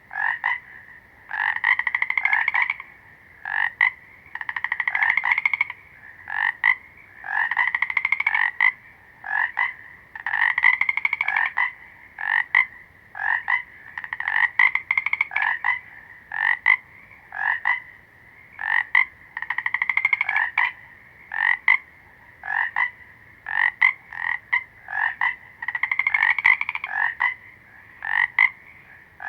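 Frogs croaking: rapid pulsing calls, some long with a rising pitch and some short, following one another every second or two.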